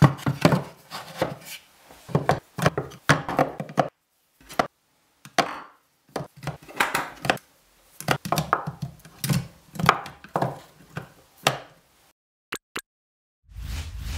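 Wooden pliers holder knocking against wooden wall slats as it is handled and hung, and steel pliers clicking and clattering onto its wooden rod, in short clusters of knocks and clicks with brief silent gaps between them.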